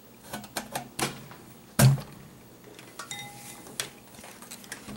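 Clicks and knocks of handling, with one loud thump just before two seconds in and a short, light metallic ring a little after three seconds, as the camera and kitchenware are moved.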